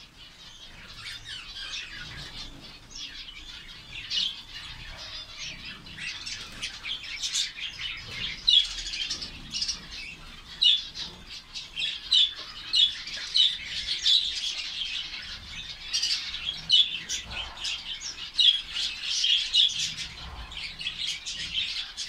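A flock of captive finches, mostly zebra finches, calling: a constant chatter of short, high chirps from many birds at once, growing busier and louder about four seconds in.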